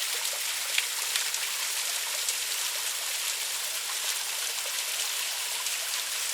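Water of a small river waterfall running steadily, an even rushing wash with scattered small splashes.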